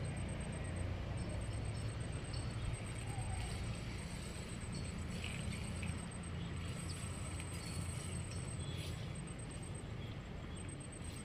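Steady low rumble of distant highway traffic, with a few faint ticks over it.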